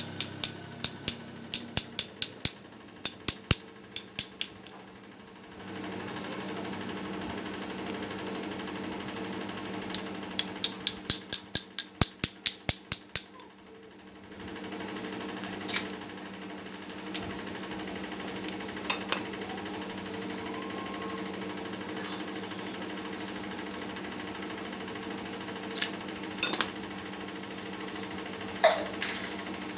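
Quick series of sharp metal-on-metal strikes, about four a second, typical of hammer taps on the parts of an air impact wrench being taken apart. A steady motor hum starts a few seconds in and runs on after a second burst of taps, with a few scattered clicks.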